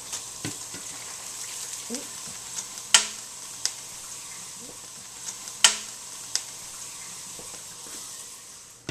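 Bacon strips beginning to fry in a stainless steel skillet: a steady high sizzling hiss. A few sharp clicks cut through it, the two loudest about three and five and a half seconds in.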